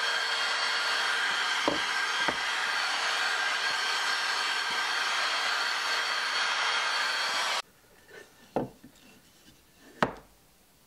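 Handheld vacuum cleaner running steadily as its crevice nozzle sucks sawdust out of a freshly routed slot in a pine block, with a couple of light taps of the nozzle on the wood; the motor cuts off abruptly about seven and a half seconds in. After it, a few light knocks of the wooden block being handled, the loudest about ten seconds in.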